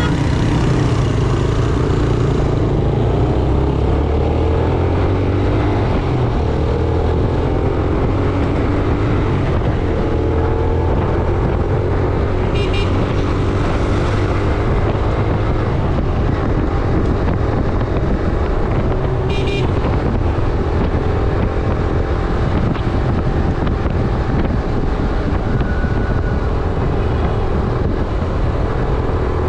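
Yamaha YBR 125G's single-cylinder four-stroke engine running under way in traffic, its revs rising and falling, with road and wind noise over it.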